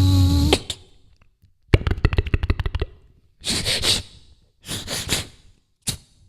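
A person imitating sound effects with their mouth and voice: a held pitched vocal tone that cuts off about half a second in, then a fast rattle of clicks, two short hissing bursts, and a single click near the end.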